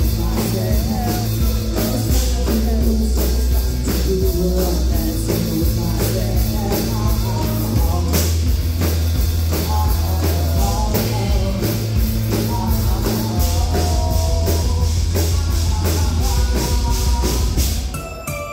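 Live rock band playing through a PA: drum kit keeping a steady beat over a heavy low end, with keyboard and a lead singer. The music drops away briefly near the end.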